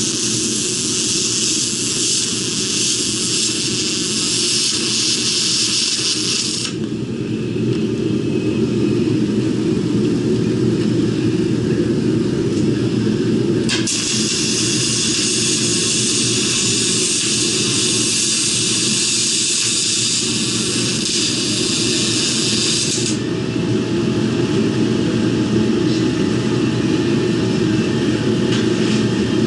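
MIG welding on aluminum: two long runs of the arc's steady hiss, the first cutting off about a quarter of the way in, the second starting with a sharp click about halfway and running nine seconds, over a steady low background noise.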